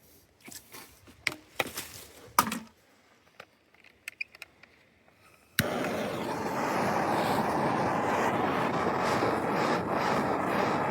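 Light handling clicks and scrapes, then about halfway a sharp click and a steady rushing noise that starts suddenly and holds: a heat tool switched on to warm the plastic mainline tubing so the new valve can be pushed in.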